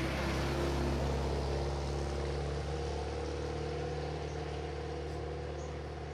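Race car engine running at steady, low revs, its level easing down slightly.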